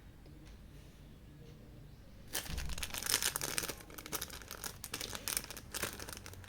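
Packaging crinkling and rustling as it is handled and opened, with a rapid irregular crackle that starts about two seconds in.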